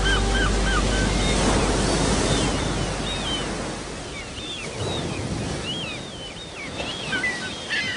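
Outdoor wind and water noise on the microphone, a steady rushing hiss that is louder at first and eases off partway through, with scattered short high chirping calls over it.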